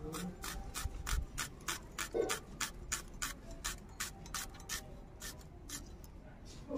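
Peeled garlic being sliced against the upright blade of a boti (a floor-mounted Bengali cutting blade): crisp, evenly spaced cuts about three to four a second, thinning out near the end.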